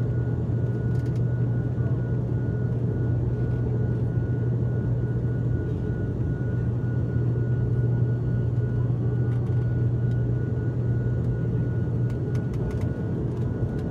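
ATR 72-600 turboprop heard from inside the cabin in the climb after takeoff: the Pratt & Whitney PW127M engines and six-bladed propellers give a steady low drone with a strong hum, plus a faint steady high whine.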